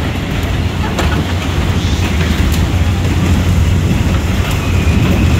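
Steady low rumble of a spinning carnival kiddie motorcycle ride, heard from on board, with a few faint clicks.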